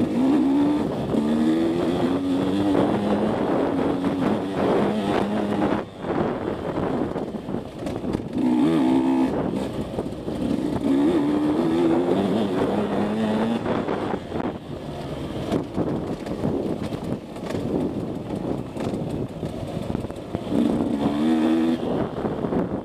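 KTM 150 SX two-stroke dirt bike engine under hard riding, revving up and easing off several times as the rider accelerates and shifts, the pitch climbing in repeated sweeps.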